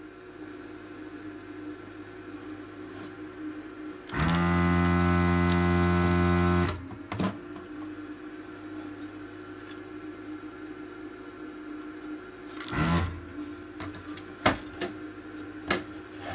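Desoldering station's vacuum pump running for about two and a half seconds, starting about four seconds in, as the desoldering gun's trigger is pulled to suck molten solder from circuit-board joints. A steady low hum runs underneath. Later there is a short noisy burst and a few sharp clicks.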